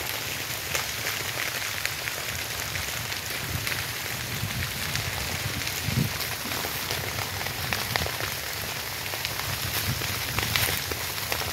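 Wildfire burning through dry grass and scrub, crackling with many small sharp pops over a steady hiss, with a low rumble underneath. One louder pop about six seconds in.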